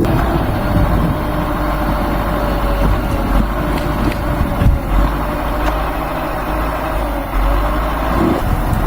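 Heavy machine's engine running steadily, with a few brief knocks.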